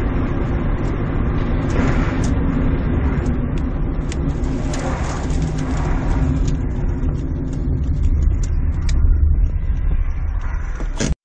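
Steady engine and road noise of a car being driven, with a few faint clicks and knocks; it cuts off suddenly near the end.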